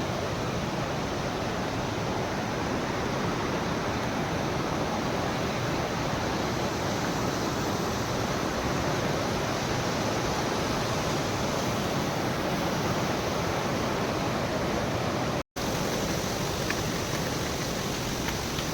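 Waterfall roaring with steady rushing water. It breaks off for an instant about fifteen seconds in, then carries on unchanged.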